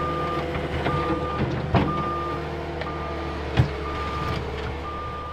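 Cat compact track loader's diesel engine running steadily while its backup alarm beeps about once a second, each beep about half a second long, the sign that the machine is reversing. Two sharp knocks come through, near two seconds in and again about three and a half seconds in.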